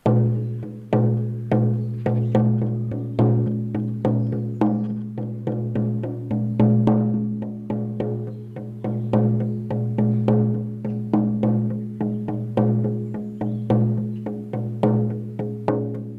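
14-inch deerskin shamanic frame drum on a beechwood frame, struck with a firm beater in a steady beat of about three strokes a second. The skin rings on between strokes with a deep, sustained tone.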